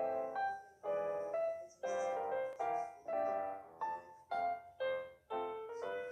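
Background music: a piano-like keyboard melody of struck notes that each fade, in an even rhythm.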